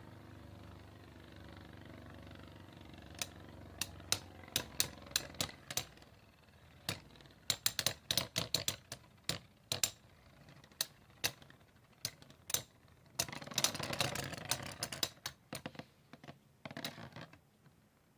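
Metal Beyblade spinning tops clashing in a stadium: irregular sharp clicks, thickening into a dense rattle for a couple of seconds near the three-quarter mark.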